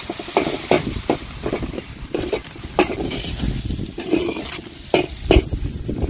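Sliced onions sizzling in hot oil in a wide metal pan. A spatula scrapes and knocks against the pan about twice a second as they are stirred.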